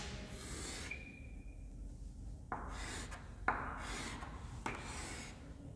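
Chalk being drawn across a chalkboard: about four quiet scraping strokes, each half a second to a second long, as lines are drawn.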